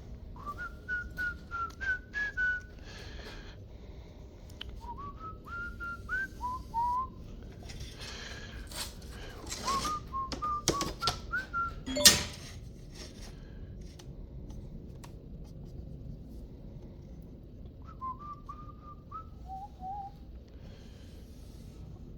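A person whistling a tune in four short phrases, with knocks and clatter from handling things in the middle and one sharp, loud clack about twelve seconds in.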